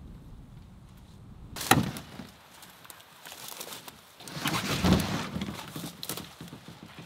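A canoe being hauled up and over a fallen tree through dead branches. A sharp knock comes about a second and a half in, then a loud cluster of cracking twigs, scraping and knocks on the hull.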